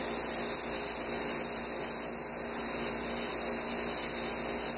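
Airbrush hissing as paint is sprayed onto a largemouth bass skin mount, over a steady hum.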